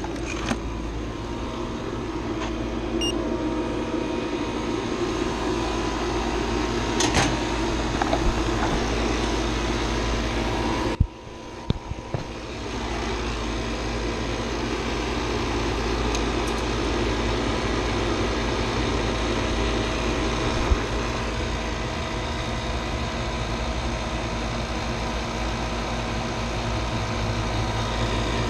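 Refrigeration vacuum pump running steadily while it evacuates a new air-conditioning line set and evaporator coil, a constant mechanical hum. The hum drops out briefly about eleven seconds in, and a few light clicks sound over it.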